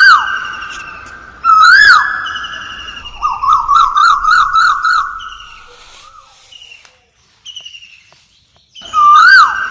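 Siren-like sound: a quick upward swoop into a held steady tone, twice, then a fast warbling yelp of about six pulses a second. It fades out around the middle, and the swoop returns near the end.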